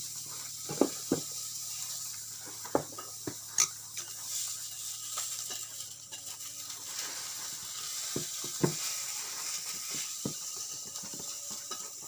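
Gram-flour batter being mixed with water by hand in a steel plate: wet stirring and slapping, with scattered sharp clicks against the metal.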